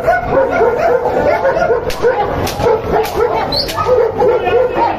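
Puppies yapping over and over in short, high yips, several a second.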